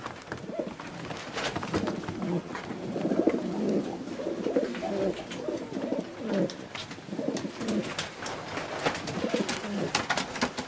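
Maltese pigeons cooing, several birds overlapping in repeated low calls, with scattered sharp clicks and knocks.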